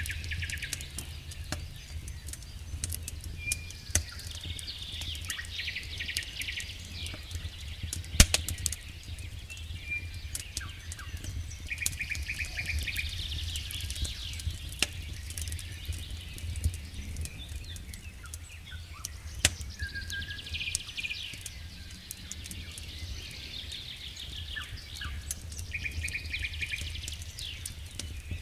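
Wood campfire crackling with scattered sharp pops, the loudest about eight seconds in, while birds sing repeated chirps and short trills in the background over a steady low rumble.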